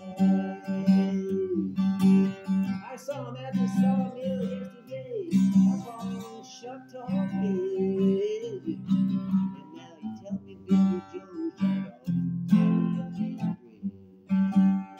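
Acoustic guitar playing steady strummed chords, with a voice carrying a melody over it at times.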